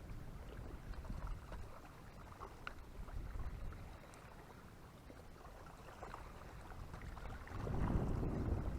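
Wind buffeting the microphone: a fluctuating low rumble that swells into a stronger gust about three-quarters of the way through.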